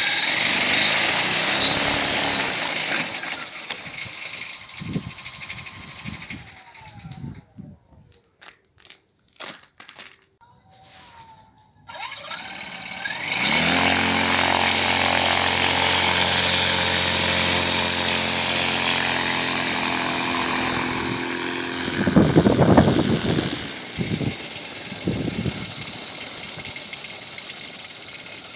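Homemade aerosled's motor and propeller spinning up with a rising whine that falls away again after a few seconds. Later it spins up again and runs steadily with a high whine over an even hum while the sled is under way, then winds down.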